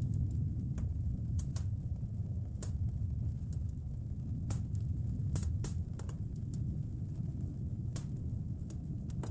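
Wood fire crackling in a fireplace: irregular sharp pops and snaps, about a dozen spread unevenly, over a steady low rumble.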